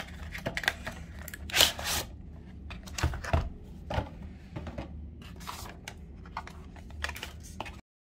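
Cardboard box and plastic packaging of a Samsung wireless charger duo being opened and handled: scattered scrapes, rustles and light taps, with one louder scrape about a second and a half in. The sound cuts off abruptly near the end.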